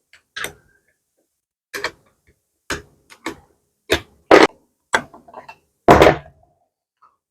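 Irregular knocks and clanks of metal tools and parts on an electric hand planer being taken apart to remove its blades, about nine in all, with a heavier thud about six seconds in.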